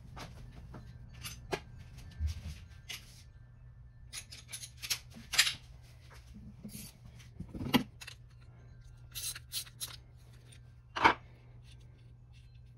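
Hand tools clicking and scraping on metal while removing a 12 mm nut from the end of a Subaru Justy DFC328 carburetor's throttle shaft. The sound comes in short irregular runs of clicks, with a couple of sharper knocks; the loudest is about eleven seconds in.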